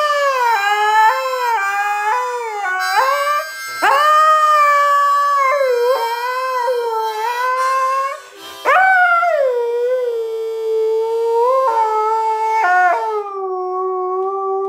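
A husky-type dog howling: long, wavering howls that each swoop up in pitch at the start, with a short break about eight seconds in.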